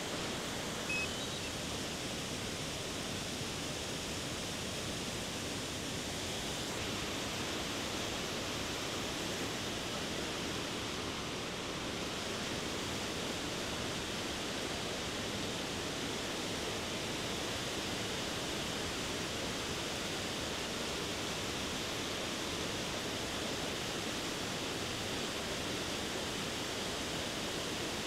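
Waterfall: the steady, even rush of water falling over rock.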